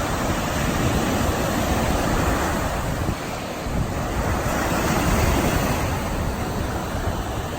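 Surf washing in at the water's edge of a sandy beach: small waves breaking and running up the sand in a steady wash that swells a little about halfway through.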